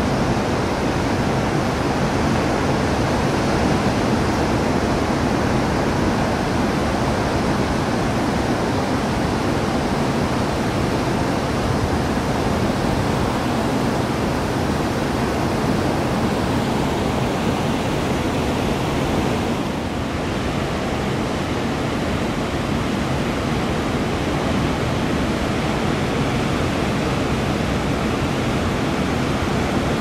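Steady roar of heavy ocean surf and wind, an even noise with no single wave crash standing out.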